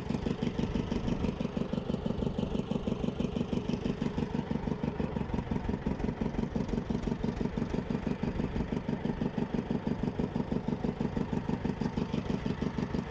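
Fishing boat's engine idling with an even, rapid pulse.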